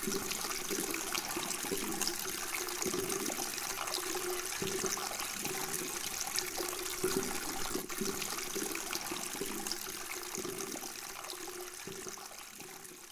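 Water pouring from a pipe onto stones, a steady splashing that fades out near the end.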